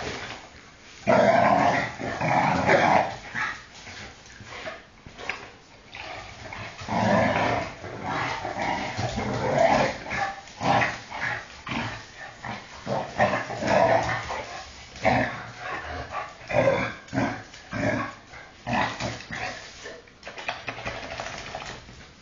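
Two shar-pei dogs play-fighting, growling in irregular bursts throughout.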